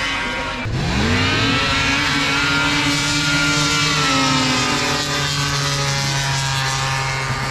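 Drag-racing snowmobiles launching at full throttle: the engine pitch climbs sharply about a second in, then holds steady at high revs as the sleds run down the track.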